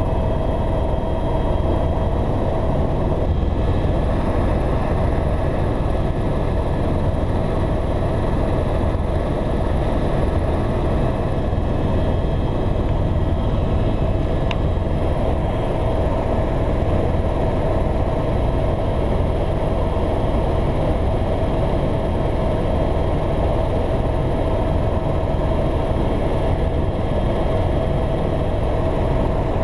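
Tour helicopter in steady flight heard from inside the cabin: a loud, even rumble with a steady high whine over it.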